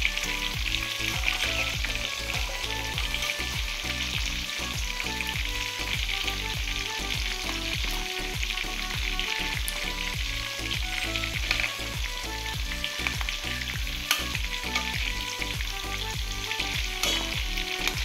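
Chicken pieces deep-frying in hot oil in a wok, a steady sizzle. A metal spatula turns the pieces and clicks against the pan a couple of times.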